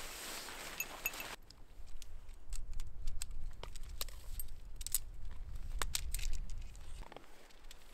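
A tent's fabric rustling as it is shaken out, cut short about a second and a half in. Then scattered sharp clicks and clinks of tent pole sections being handled and fitted together.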